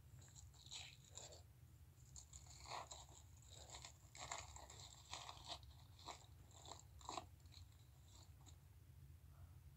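Faint keyboard typing: a scatter of short, irregular key clicks as a line of text is entered, over a low steady hum.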